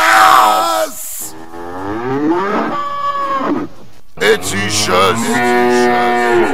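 A bull mooing: two long moos, the first bending up and down in pitch, the second held steadier, after the song's music stops about a second in.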